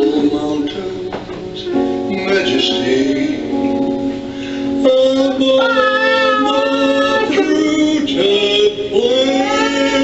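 Music: a song with a voice singing a melody over guitar accompaniment.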